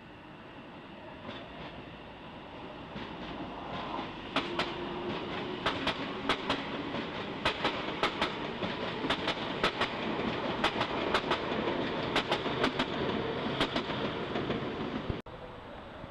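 A train passing over a level crossing, its wheels clicking over the rail joints in quick pairs as each bogie goes by. The rumble builds over the first few seconds and cuts off suddenly near the end.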